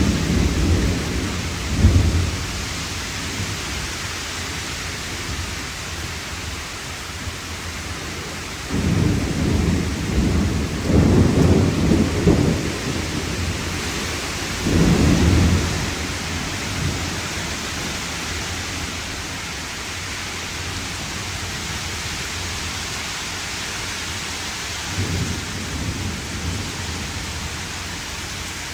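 Heavy rain falling steadily, with several rolls of thunder rumbling over it: one at the start, a longer one about a third of the way through, another shortly after, and a fainter one near the end.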